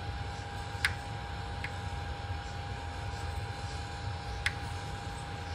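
Micro Swiss dual gear extruder clicking a few times at irregular intervals, the loudest about a second in, over the steady hum of the running 3D printer. The extruder gears are grinding on the filament instead of feeding it, the cause of the printer's under-extrusion.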